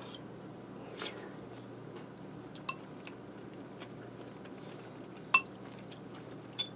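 Metal spoon clinking against a ceramic soup bowl while scooping soup, a few light clinks, each with a short ring, the sharpest about five seconds in.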